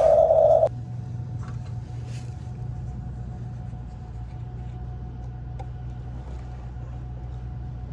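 A loud, high sound cuts off suddenly under a second in. It gives way to a steady low motor hum with a faint whine above it and a few light clicks.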